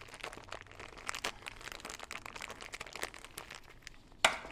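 Small clear plastic bag of O-rings crinkling in gloved hands as it is opened and rummaged through: a run of crisp crackles, with one louder crackle near the end.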